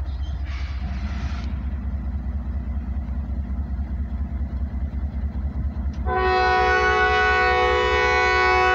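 Diesel locomotives approaching with a steady low rumble. About six seconds in, the lead locomotive's multi-chime air horn sounds one long, loud blast for the grade crossing, held almost to the end.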